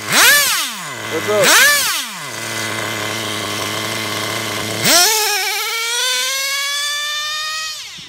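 Traxxas Jato's TRX 3.3 nitro engine revved twice in quick blips, then idling steadily. About five seconds in it goes to full throttle, its high whine climbing steadily in pitch as the car accelerates away, and it falls away just before the end.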